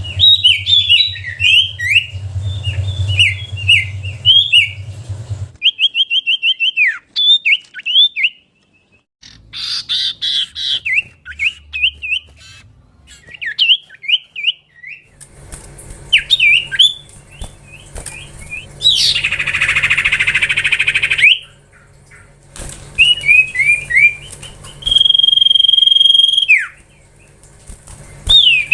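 Common iora (cipoh) singing: runs of quick, clear whistled notes, many sliding downward, in rapid series. About two-thirds through comes a couple of seconds of harsh rasping call, and near the end one long level whistle is held.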